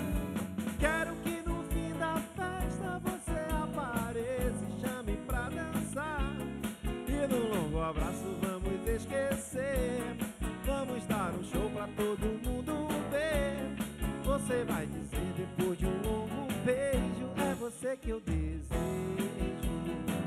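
A live band playing: drum kit with a steady kick, electric bass and electric guitars, under a lead melody that bends and wavers in pitch.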